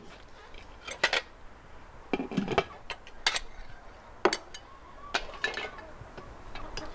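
Cookware and dishes being set down on a table: a pot and its metal lid, an enamel bowl with a spoon, and an aluminium colander with a slotted spoon, giving a string of separate knocks and clinks.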